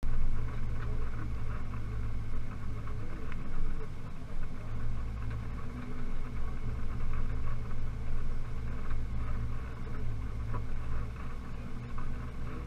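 Pickup truck engine running at low speed as the truck rolls slowly over grass: a steady low drone with a constant rumbling noise over it.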